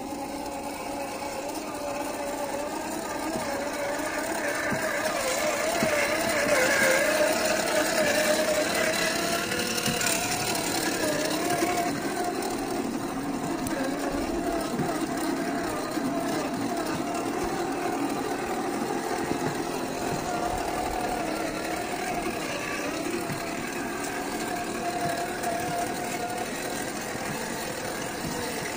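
RC rock crawler's 550 brushed electric motor and gear drivetrain whining as it crawls over rocks. The pitch wavers up and down with the throttle and is loudest a few seconds in.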